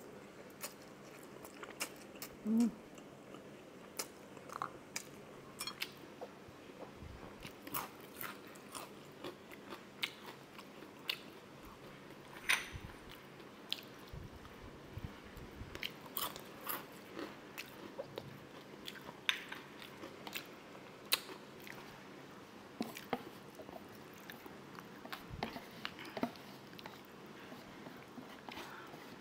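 Close-miked eating: a person chewing and crunching mouthfuls of food, with many scattered sharp mouth clicks and smacks. About two and a half seconds in there is a brief rising vocal sound, the loudest moment.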